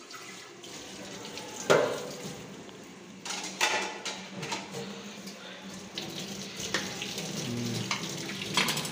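Kitchen tap running steadily, with a sharp knock on the stone counter about two seconds in and a few softer handling noises as dough is rolled and cut.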